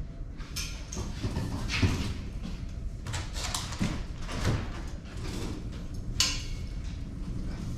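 Irregular scraping and knocking over a steady low rumble.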